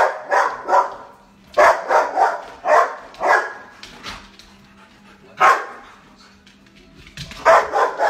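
Bouvier des Flandres barking repeatedly in clusters of two or three, with a lull about midway, alert barking at buffalo on the television.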